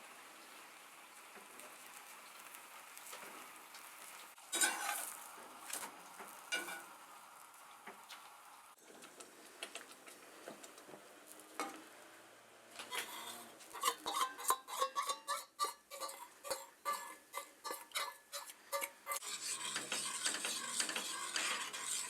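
A utensil knocking and stirring in a cooking pot. There is one loud knock about four seconds in, then a run of stirring strokes, about two or three a second. Near the end comes a steady sizzle of food frying.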